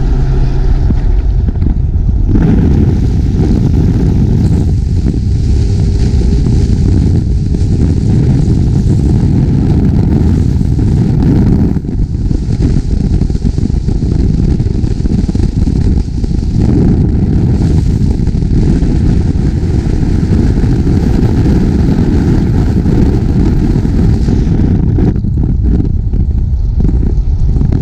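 Car engines and exhausts running loudly and steadily, with a short dip in level about twelve seconds in.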